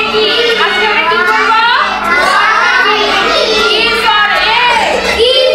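A class of children chanting words in chorus with their teacher, many high young voices reciting together in a sing-song rhythm.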